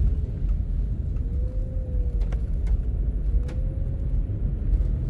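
Steady low rumble of a four-wheel-drive van's engine and tyres heard from inside the cab, driving on a snow-covered road. A faint whine rises and falls in pitch twice, with a few light ticks.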